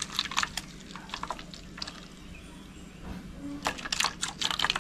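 Wet ground coconut being emptied from a stainless-steel mixer jar into a steel strainer: scattered clinks and taps of metal on metal, a quieter stretch in the middle, then a quick run of clicks near the end.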